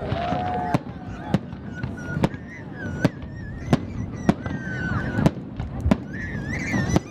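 Fireworks display: aerial shells bursting overhead, a string of about a dozen sharp bangs at irregular intervals, roughly one every half second to a second.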